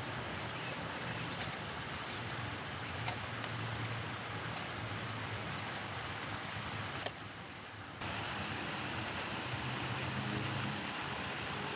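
Light rain falling: a steady hiss with a few faint ticks.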